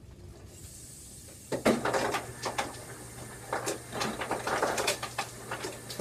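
Irregular clatter and rustling of things being handled at a kitchen counter: a run of sharp clicks and knocks that starts about a second and a half in.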